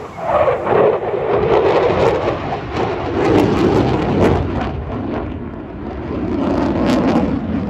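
Eurofighter Typhoon's twin Eurojet EJ200 turbofans in afterburner: a loud, crackling jet roar that comes in suddenly and falls in pitch during the first second, then rumbles on, easing a little about five seconds in before swelling again.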